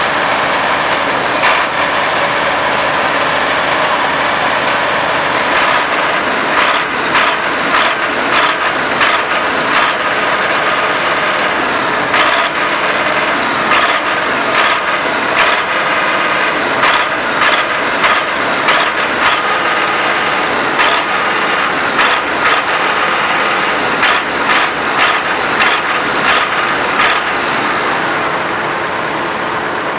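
Farm machine engine running steadily with a thin whine. From about six seconds in, irregular sharp clicks or knocks come roughly once or twice a second.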